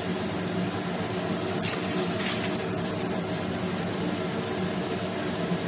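Water and coconut milk heating in a stainless steel pressure-cooker pot, over a steady low hum, with a brief hiss about two seconds in.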